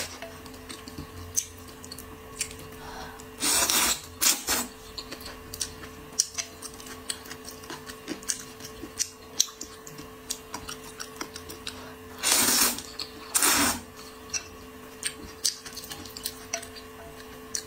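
Noodles slurped loudly in two pairs of short slurps, one pair about three and a half seconds in and another about twelve seconds in. Small wet chewing clicks and light chopstick taps fill the gaps, over a faint steady hum.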